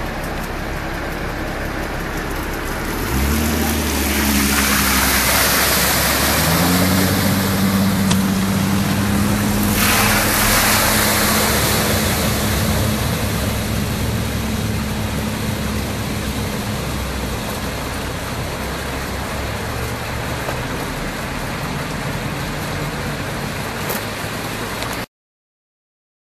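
Porsche Cayenne engine pulling through deep flood water over a steady rush of water; the engine note climbs about three seconds in and again a few seconds later, and a heavy splash of water comes about ten seconds in. The sound cuts off shortly before the end.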